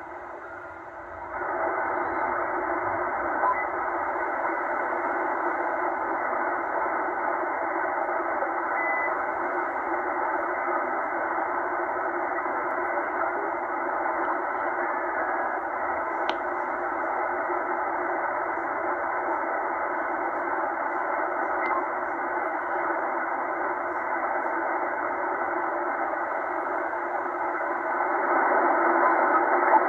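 Tecsun H-501X shortwave receiver in upper-sideband mode giving out steady, narrow-band static while it is tuned across the aeronautical band, with no clear signal coming through. It gets a little louder near the end.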